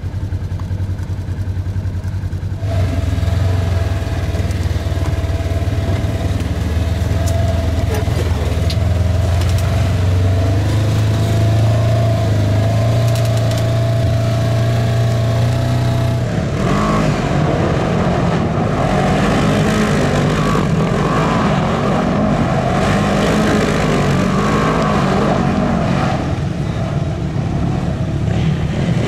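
Off-road vehicle engine running: a steady hum that grows louder a few seconds in, then turns rougher and noisier about halfway through.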